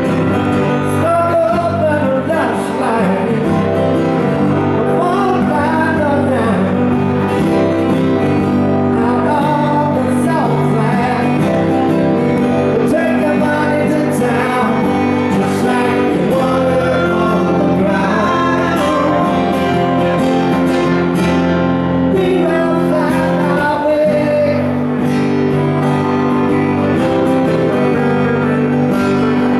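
Live acoustic band music: acoustic guitars playing a slow song, with a wavering melodic line over steady held chords.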